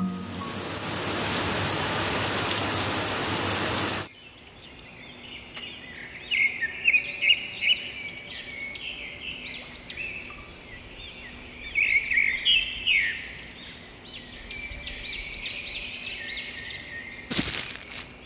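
A loud, steady hiss for about the first four seconds, then birds chirping and calling over and over against a faint background of rain. A short burst of noise comes just before the end.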